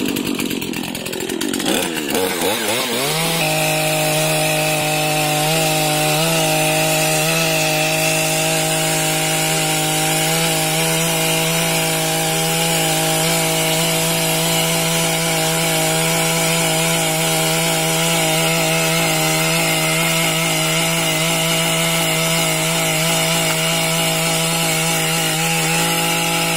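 Petrol chainsaw being started and revving unevenly, then from about three seconds in running at a steady high pitch while it cuts through a tree branch.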